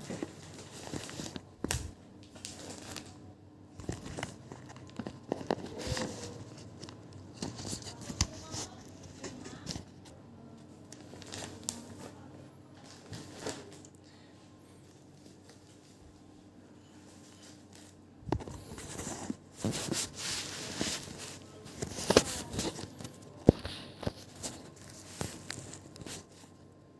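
Irregular crinkling and rustling with sharp clicks. It is busy for about the first half, quieter for a few seconds, then busy again until shortly before the end.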